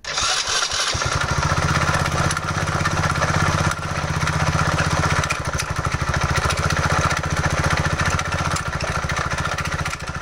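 Honda Little Cub's single-cylinder four-stroke engine, rebuilt with a Kitaco 85cc bore-up kit, running loudly with a fast, steady beat, dipping briefly about four seconds in. The owner believes the engine is damaged: cam chain slap, and probably a damaged connecting rod.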